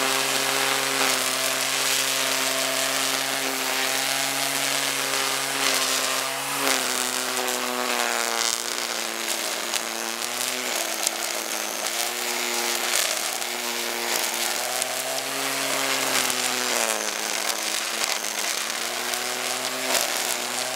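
Black & Decker electric string trimmer in edger mode, its motor whining steadily as the spinning line cuts grass along a paver edge. The pitch sags a few times under load as the line bites into grass, then picks back up.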